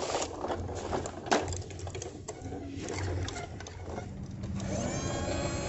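Toy garbage trucks being worked by hand: irregular plastic clicks and rattles with one sharp click. About a second before the end a steady whirring tone starts.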